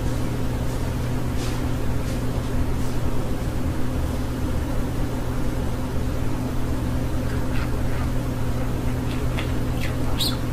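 Steady low mechanical hum, like an appliance or fan running, with a budgerigar's faint short high chirps scattered over it, more of them near the end and the loudest about ten seconds in.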